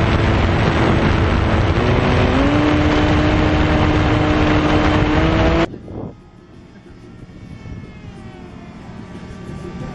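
Wind rushing over the microphone with the whine of an RC foam plane's electric motor; the motor pitch steps up about two seconds in. The loud rush cuts off suddenly a little past halfway, leaving a fainter motor whine that slides in pitch.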